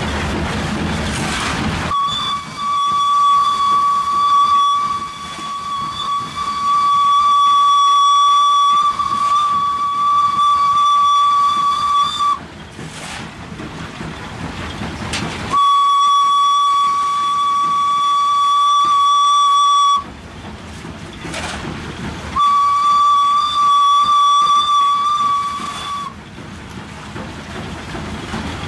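Steam locomotive whistle of a WP-class 4-6-2, heard loud from the footplate. It sounds one steady high note in three blasts: a long one of about ten seconds, then two of about four seconds. Between the blasts come steam hiss and the scrape of a coal shovel.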